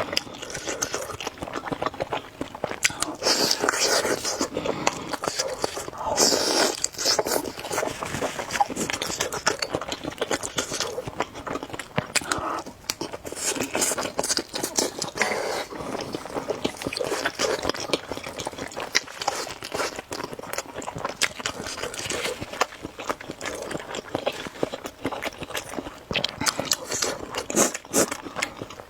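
A person eating spicy noodles with eggs: continuous chewing and wet mouth sounds, with many irregular clicks and short noisy swells.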